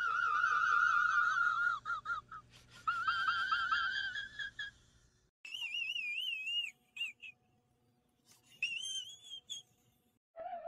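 A man's high, warbling laugh, its pitch wobbling rapidly up and down, played as an edited sound effect: for the first five seconds with an echo effect layering repeats over it, then in two shorter bursts pitched up higher.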